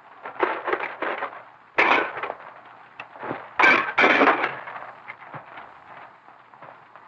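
Two sudden loud crashes, about two seconds and about four seconds in, with shorter clattering before and between them.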